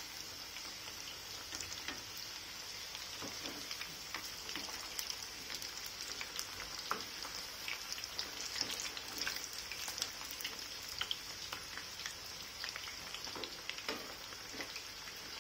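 Chicken lollipop pieces in red marinade frying in hot oil in a pan, a steady sizzle full of small crackles and pops, as the pieces are turned over to fry the other side.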